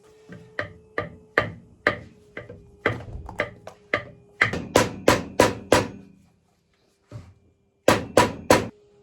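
A hammer striking metal over and over, about two to three blows a second, pausing briefly before a single knock and three quick blows near the end. It is an attempt to knock a polyurethane suspension bush home by hand that does not work.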